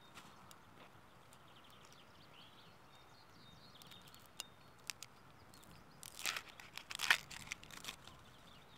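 Thin plastic carrier bag crinkling in several short bursts in the second half, after a few faint clicks.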